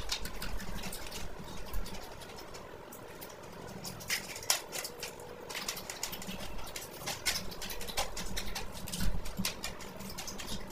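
Close-miked eating sounds: whole fried fish torn apart by hand and chewed, giving irregular crackling clicks and wet mouth noises. A dull thump about nine seconds in.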